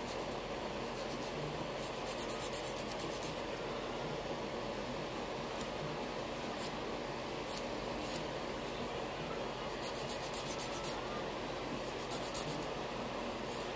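Light, rapid scratching in short bursts, several times over, from hand work on the fingernails, over a steady background hum.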